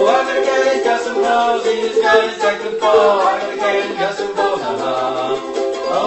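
Several voices singing a cappella in harmony, part of a comic song about a cat.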